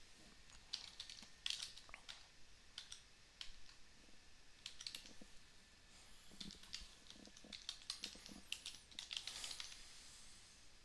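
Faint keystrokes on a computer keyboard, typed in irregular runs with short pauses between them.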